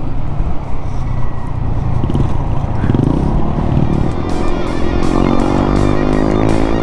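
Motorcycle engine and wind rush while riding, the engine note rising in pitch as the bike speeds up in the second half. Background music with a regular beat comes in about four seconds in.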